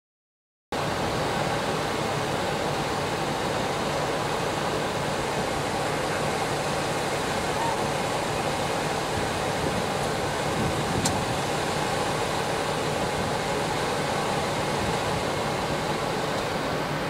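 Steady running noise of a passenger train rolling along the rails, heard from on board. It cuts in abruptly just under a second in, after silence.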